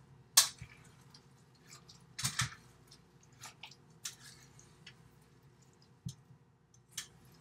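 A utensil stirring a thick, wet cookie mixture of oat flour, mashed avocado and shredded zucchini in a bowl: soft squishing broken by sharp clicks and knocks against the bowl. The loudest knock comes about half a second in and a cluster comes around two seconds in.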